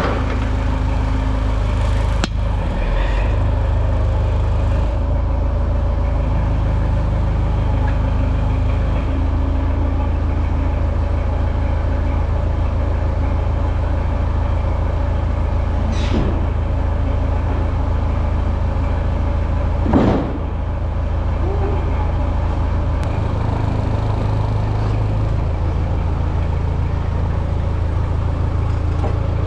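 Portable band sawmill's gas engine running steadily, with two brief sharp knocks partway through, the second the loudest.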